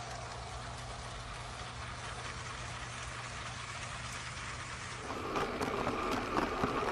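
LEGO trains running on plastic track: a steady low hum with hiss, then about five seconds in, a louder close rattle of wheels clicking rapidly over the track.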